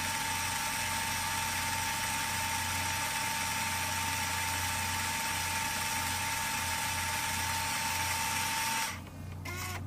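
A steady whirring hiss with a constant high tone and a low hum, unchanged throughout, that cuts off suddenly near the end, leaving faint voices underneath.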